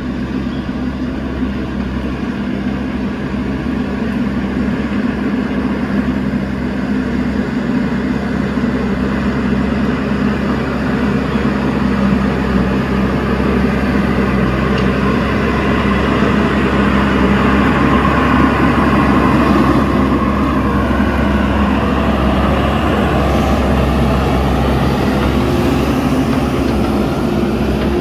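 JCB backhoe loader's diesel engine running steadily as the machine pushes soil with its front bucket, growing louder over the first half and then holding.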